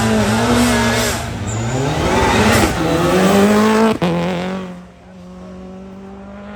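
Porsche race car engine revving hard up a hillclimb course: the pitch climbs, dips, and climbs again to a sharp gearshift about four seconds in. After the shift the engine sound falls to a quieter, steadier tone as the car pulls away.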